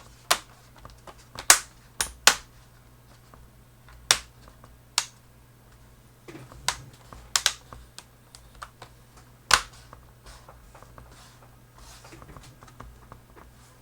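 Plastic laptop screen bezel of a Toshiba Satellite C650D being snapped back on by hand: a dozen or so sharp clicks at irregular intervals as its clips latch into place one by one around the frame.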